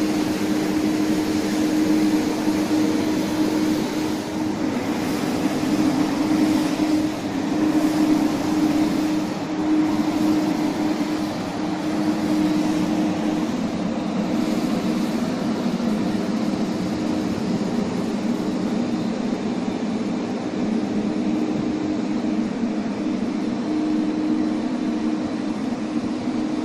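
Končar TMK 2200-K low-floor electric tram: a steady hum with a constant low tone over continuous noise, even in pitch and level throughout.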